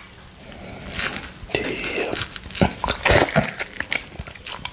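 Close-miked wet slurping and sucking at a squeezed orange half, with squelching of the pulp as it is pressed. The sounds come as a run of short wet bursts, starting about a second in.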